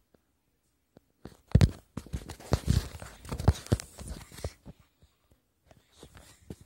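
Handling noise of a phone being moved about close against a wooden surface: a dense run of knocks and rustling scrapes from about a second in until about four and a half seconds, then a few faint clicks.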